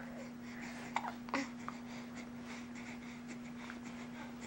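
Baby babbling softly, with two brief sharp sounds about a second in, over a steady low hum.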